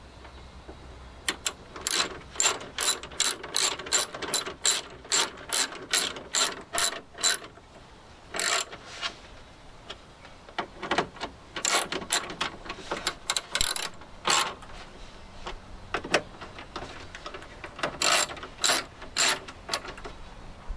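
Hand socket ratchet clicking as a bolt inside a car door is turned: a steady run of strokes at about two a second for several seconds, then shorter bursts with pauses between them.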